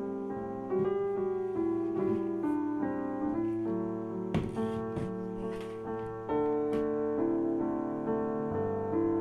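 Background piano music: a gentle melody of held notes over soft chords.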